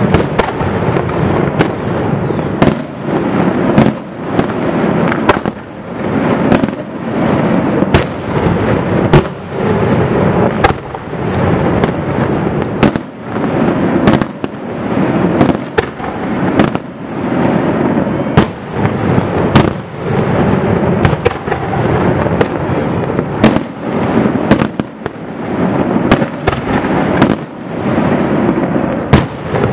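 Aerial firework shells bursting in quick succession during a display, about one sharp bang a second over a continuous rumble and crackle.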